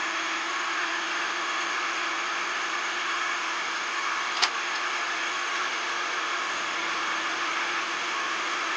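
A machine running steadily with an even hiss over a low hum, and a single sharp click about halfway through.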